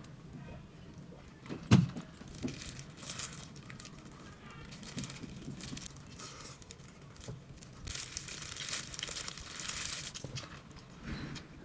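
Crinkling and rustling of a food wrapper being handled, with a sharp knock a little under two seconds in and the densest crinkling from about eight to ten seconds.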